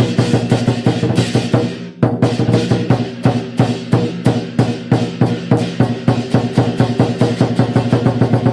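Lion dance percussion music: a fast, steady drum beat with dense strikes. It breaks off briefly about two seconds in, then resumes.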